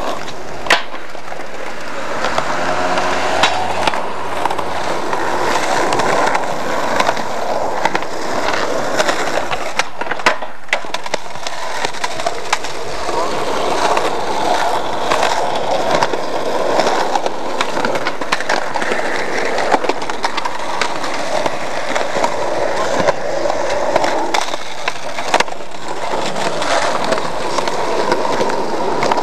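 Skateboard wheels rolling on rough concrete, with several sharp clacks of boards popping and landing.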